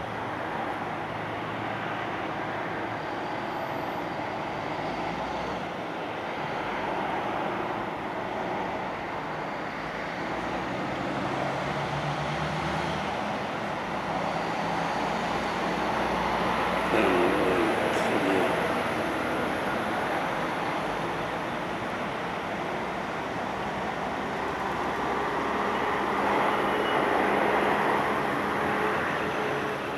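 Steady rumble of distant traffic, swelling twice as vehicles pass.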